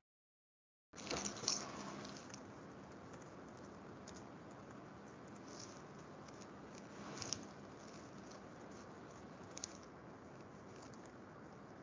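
Computer keyboard typing: a quick run of keystrokes about a second in, then a few scattered single key taps over a faint steady hiss.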